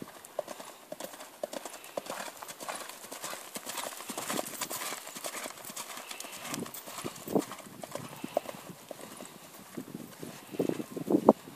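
Hoofbeats of a ridden horse cantering on grass turf, a steady run of dull knocks, loudest as it passes close about halfway through.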